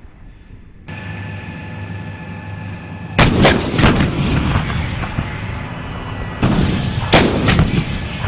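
M109A6 Paladin 155 mm self-propelled howitzers firing. Two loud groups of blasts come about three seconds in and again about six and a half seconds in, each made of several sharp cracks in quick succession, with a steady mechanical hum underneath between them.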